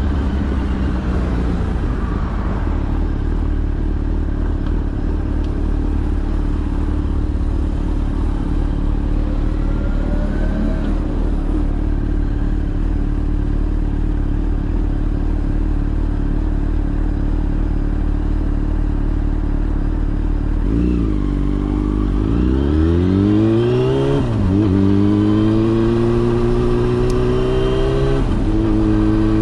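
Yamaha FZ6 inline-four engine running steadily, then from about two-thirds of the way in climbing in pitch twice, each climb cut by a quick drop, as in upshifts under acceleration.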